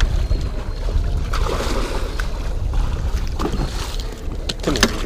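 Wind rumbling on the microphone aboard a small trolling boat, with a few light clicks and rustles as the landing net and fishing tackle are handled.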